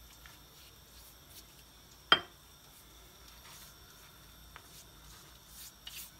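Faint brushing and rustling of thin yufka pastry sheets as they are brushed with oil and handled on a stone countertop, with a few light ticks and one sharp click about two seconds in.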